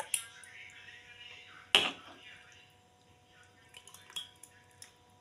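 Thick custard sharbat poured over ice into a drinking glass: a soft, fading splashing pour, with one sharp clink just under two seconds in and a few faint ticks later.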